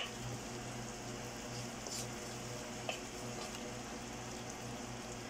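Thick sardine masala simmering with a soft, steady sizzle in a pan, with a few faint clicks of a wooden spoon against the pan.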